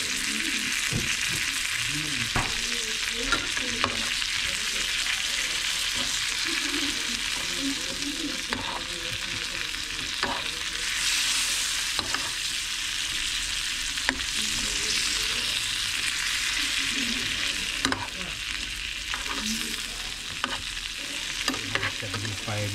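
Trout pieces sizzling steadily as they pan-fry in melted butter in a nonstick skillet. A metal spoon clinks and scrapes against the pan several times as it bastes them.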